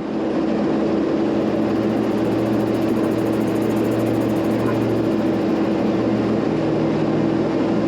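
Tractor engine running steadily under load at road speed, a constant low drone.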